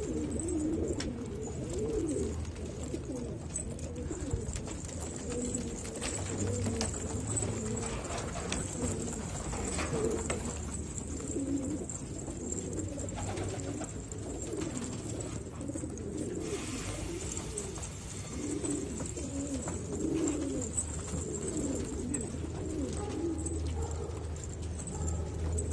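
A flock of German long-distance racing pigeons cooing continuously, many low, wavering coos overlapping.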